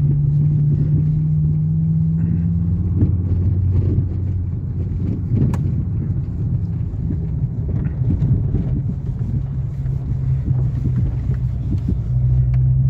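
Mercedes car's engine and exhaust heard from inside the cabin while driving slowly: a steady low drone whose pitch drops about two seconds in and rises again near the end as the throttle is opened. The owner believes something has happened to the exhaust, which gives the car an unusual note.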